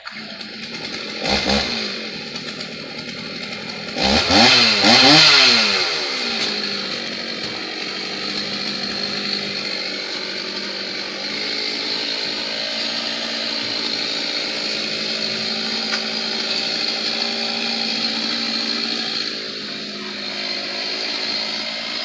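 Stihl two-stroke chainsaw: a brief burst about a second in, then the saw fires up about four seconds in and is revved up and down a few times before settling into a steady idle.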